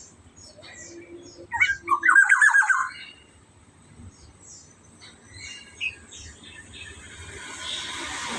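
Black-naped oriole giving a loud harsh call about two seconds in, lasting about a second, among faint high chirps of smaller birds. A rushing noise builds near the end.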